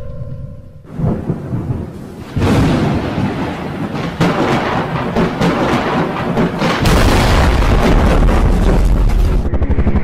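Rumbling, booming sound effect that steps up in loudness, turning into a heavy deep rumble in the second half. Near the end a fast, evenly repeating pulse starts.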